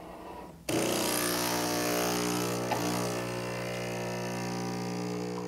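Nespresso U single-serve espresso machine's pump running as it brews a lungo shot: a steady mechanical buzz that starts suddenly about half a second in and holds even.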